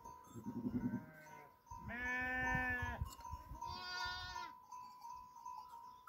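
Sheep bleating three times: a low, wavering bleat, then a long, loud bleat about two seconds in, then a higher-pitched bleat around four seconds in.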